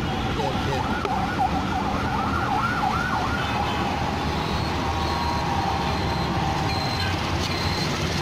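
A siren sounds in fast rising-and-falling sweeps for about three seconds, then settles into a steadier tone, over the constant rumble of road traffic.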